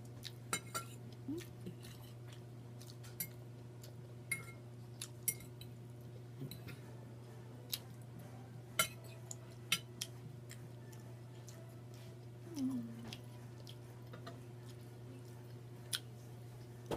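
Eating at a table: scattered small clicks, taps and clinks of utensils and dishes, mixed with chewing, over a steady low hum. A brief voice sound comes about twelve and a half seconds in.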